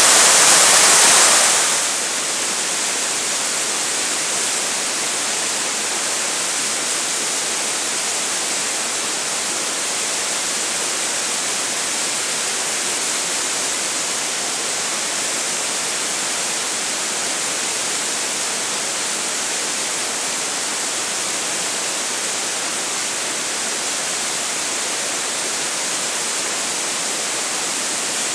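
Whitewater pouring over a rock ledge in a creek: a steady rush of falling water, louder at first and dropping a little under two seconds in, then even throughout.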